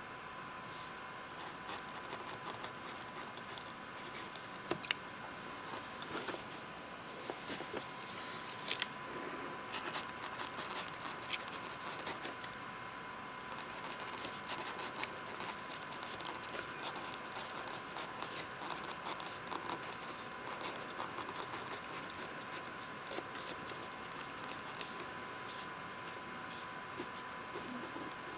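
Pen writing on lined notebook paper: quick, continuous scratchy strokes, with two sharper ticks about five and nine seconds in.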